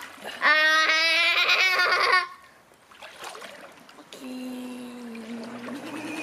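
A child's loud wordless vocalizing, held for about two seconds, then light splashing of pool water, then a long low hum from about four seconds in.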